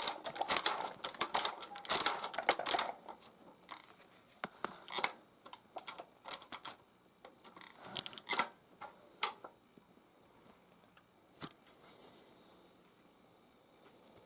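Tippmann Boss hand-crank leather sewing machine clacking as it is worked through leather: a dense run of sharp clicks for about three seconds, then slower, scattered clicks and knocks that die away about ten seconds in.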